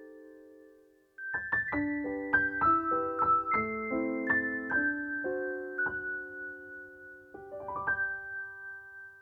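Background piano music: a chord fades out, then a flowing run of notes and a short rising arpeggio that ends on a held, fading chord.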